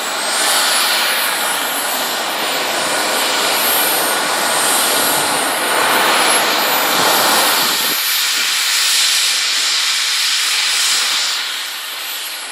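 Twin JetCentral Super Eagle model jet turbines on a large RC F-4 Phantom, running as it taxis: a loud hissing rush with a high whine that climbs in pitch twice as the throttle moves. The lower part of the sound drops away about eight seconds in.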